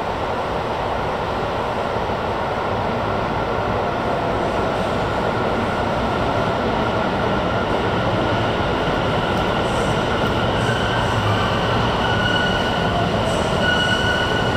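Subway train approaching unseen through the tunnel, its rumble growing steadily louder, with a high whine and faint wheel squeal coming in over the last few seconds.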